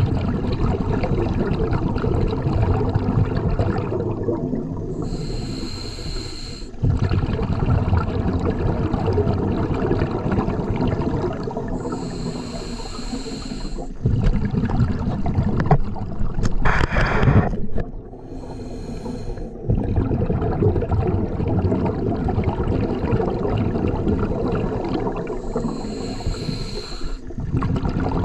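Scuba diver breathing through a regulator, heard underwater: four short hissing inhalations, each followed by several seconds of rumbling, gurgling exhaled bubbles, in a slow cycle of about seven seconds.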